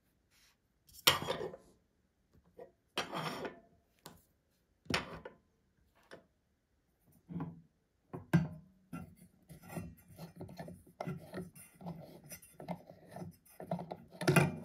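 Hands handling small plastic parts, with a few separate scrapes, then a quick series of short rubbing twists as an E14 LED bulb is unscrewed from the lamp's socket.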